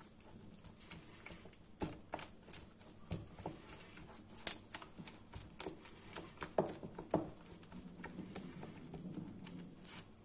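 Spatula stirring a wet flour-and-yeast batter in a china bowl: irregular clicks and knocks as it strikes the bowl, the loudest about four and a half seconds in.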